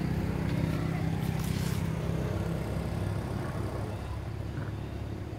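Motor vehicle engine running steadily, a low hum that eases off slightly in the second half.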